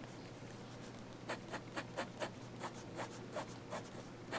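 Fountain pen nib, a Pilot Kakuno's, scratching on notebook paper in quick short hatching strokes, about four a second, starting about a second and a half in.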